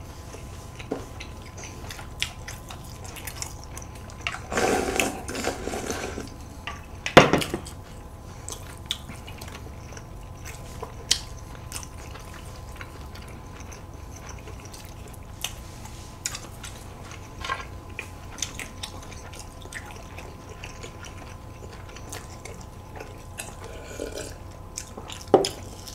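Quiet eating sounds at a meal table: chewing, with chopsticks clicking against plates and bowls. A short rustling patch comes about five seconds in, and a sharp knock, the loudest sound, about seven seconds in.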